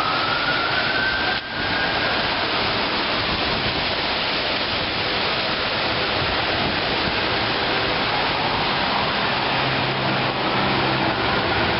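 Steady hiss of heavy rain. A distant emergency-vehicle siren wails faintly and fades out in the first two seconds.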